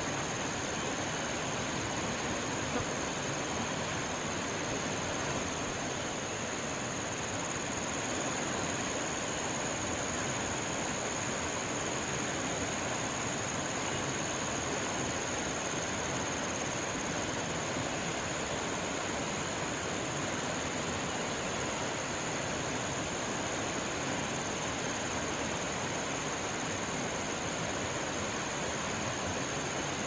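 Steady forest background noise: an even rushing hiss with a constant high-pitched whine on top.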